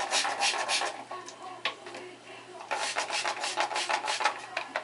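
Quick rubbing strokes of hands or a tool working through wet, moussed hair, in two bouts: one at the start, and a longer one from a little before 3 seconds in.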